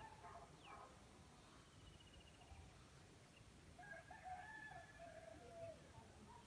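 A rooster crowing once, faint and distant, starting about four seconds in and lasting about two seconds, its pitch falling at the end. Earlier, a small bird gives a short, high, rapid trill.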